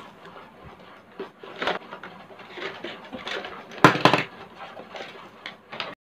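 Cardboard retail box and its packaging being opened and handled: scattered rustles and small clicks, with a louder knock and rustle about four seconds in as the inner tray is pulled out.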